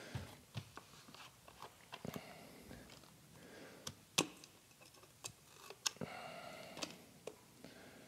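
Faint clicks, taps and crinkling from hands working the cap and seal of a plastic gallon jug, with a few sharper clicks in the second half.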